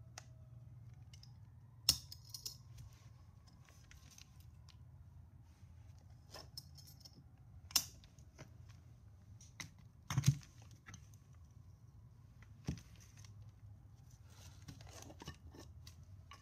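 Jars and paper being handled on a workbench: a few sharp knocks and clicks, about four louder ones spread apart, with light rustling between them, over a low steady hum.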